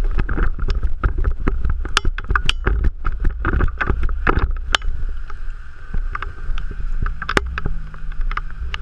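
Gusty storm wind rumbling hard on the microphone, with irregular sharp ticks and taps several times a second.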